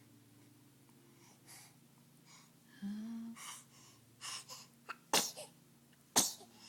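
An 11-week-old baby sneezing twice, about a second apart. A short vocal sound and quick breaths come just before.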